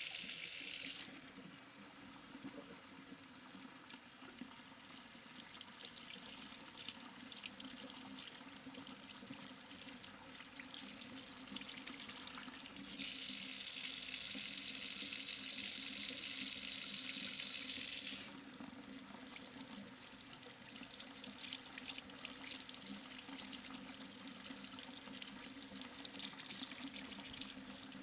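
Sink tap running in two strong gushes, one for about a second at the start and one for about five seconds midway, with softer splashing and trickling in the basin between and after.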